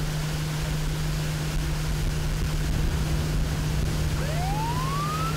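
Patrol boat's engine running steadily under way, with wind and water rushing past. About four seconds in, a police siren starts up, one rising wail.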